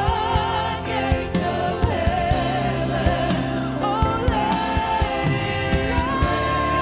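Woman singing a gospel worship song solo with strong vibrato, over instrumental accompaniment with a steady beat.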